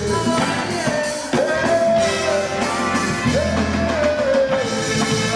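Live band music with a singer holding long notes, each swooping up into pitch, over drums.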